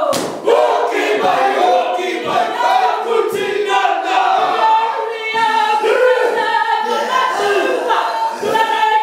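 Māori performers chanting in unison, a group of voices in loud rhythmic phrases, with one sharp hit about a quarter second in.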